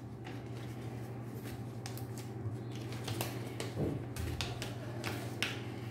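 Folded sheets of paper rustling and crackling as the pages are turned and handled, with a few sharper crackles in the second half, over a steady low hum.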